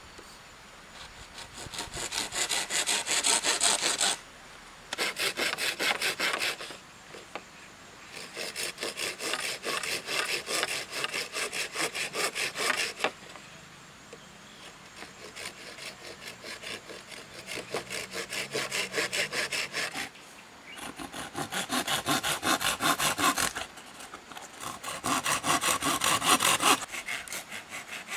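Hand saw cutting through green bamboo poles with quick back-and-forth strokes, in several bouts broken by short pauses.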